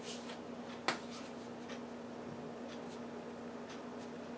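Quiet handling of a plastic spice shaker: one sharp click about a second in, from its cap, and a few faint soft rustles and ticks over a steady low hum.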